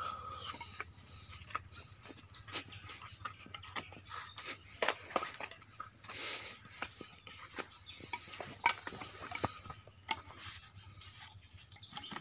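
Metal parts and hand tools clinking and scraping as excavator boom-cylinder seal parts are handled: many light, irregular clicks and knocks, a few sharper ones.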